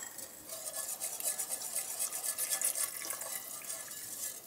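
Wire whisk beating a thin brown sauce in an enamelled cast-iron pot, rapid continuous strokes with light wet swishing and the wires ticking on the pot, as cornstarch slurry is whisked in to thicken the sauce. It starts about half a second in.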